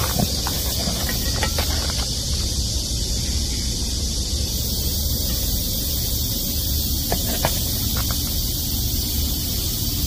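Steady high-pitched hiss over a low outdoor rumble, with a few light clicks as a car AC refrigerant charging hose with a gauge and brass fittings is handled over a cardboard box.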